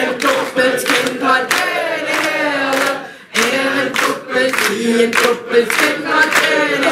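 Group singing a song with steady rhythmic hand-clapping on the beat, about two to three claps a second, broken by a short pause about three seconds in.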